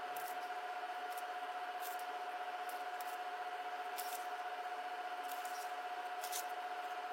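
A steady, unchanging tone over a faint hiss, with a few faint ticks scattered through it.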